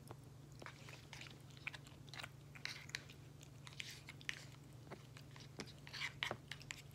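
Siamese cat eating wet cat food, chewing and licking in a string of small, irregular clicks and smacks.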